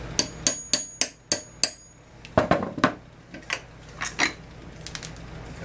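Hammer striking a steel pin punch to drive the centre electrode out of a Champion CJ14 spark plug held in a vise: about six quick ringing metallic taps in the first two seconds, then a few duller knocks and scattered taps. The electrode is moving and the porcelain insulator in the middle is shattering.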